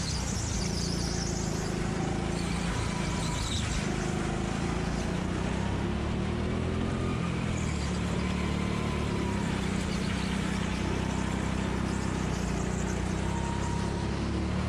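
Go-kart engine running under throttle, heard from the driver's seat: a steady drone whose pitch rises and falls a little as the kart speeds up and slows for corners.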